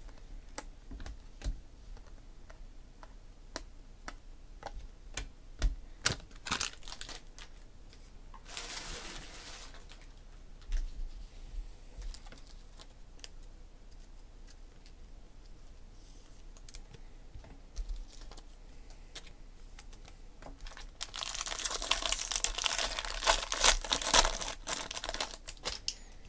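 Baseball cards being flicked and slid one by one through the hands, a run of light clicks and snaps. Near the end a foil card-pack wrapper is torn open and crinkled for a few seconds, the loudest part.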